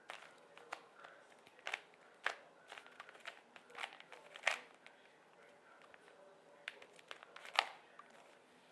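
Rubik's cube being turned by hand: quick, irregular plastic clicks and clacks as its layers are twisted, the loudest a sharp clack about four and a half seconds in and another about seven and a half seconds in.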